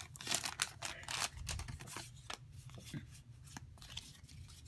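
Pokémon trading cards being slid out of a freshly torn foil booster pack and flicked through in the hand: a run of short, irregular clicks and soft rustles, busier in the first second.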